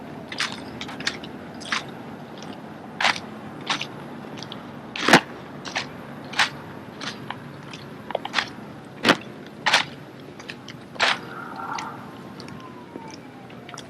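Drill rifles being handled in a practice routine: a string of sharp, irregular smacks and clacks as hands slap, spin and catch the rifles, some louder than others.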